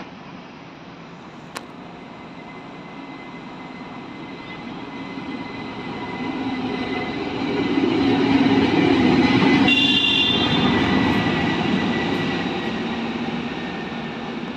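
SM42 diesel shunting locomotive passing through at speed as a light engine. Its diesel engine and wheels grow louder as it approaches, are loudest about eight to ten seconds in, then fade as it moves away.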